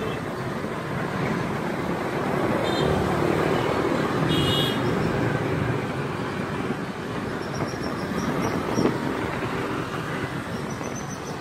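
Steady road traffic, mostly motorbikes and cars going past, as a continuous rush of engine and tyre noise. A few short high-pitched beeps or chirps cut through it, the clearest about four and a half seconds in.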